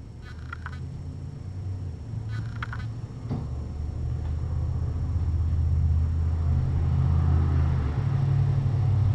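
A low, steady rumble that grows louder about halfway through, with two brief high squeaks in the first three seconds.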